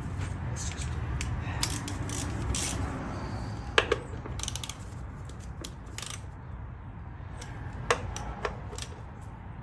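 Ratchet wrench clicking in short, uneven runs while engine-bay bolts are worked, with a few louder single clicks in the second half.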